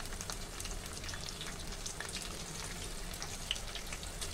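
Battered jackfruit pakoras deep-frying in hot oil in a kadhai: a steady sizzle with many small, irregular crackles and pops.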